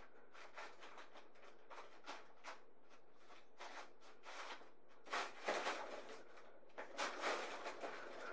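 Brown packing paper crinkling and rustling as a kitten paws at and pounces on it, a string of short crackles with two louder flurries about five and seven seconds in.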